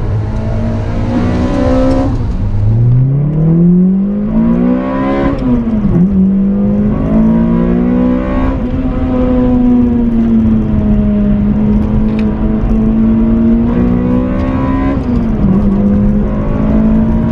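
Toyota Corolla Sportivo's 2ZZ-GE 1.8-litre four-cylinder with VVTL-i and a muffler-deleted exhaust, heard from inside the cabin under hard acceleration. The revs climb steeply for about three seconds and drop sharply at an upshift, then the engine pulls on at steadier revs, with a smaller dip near the end.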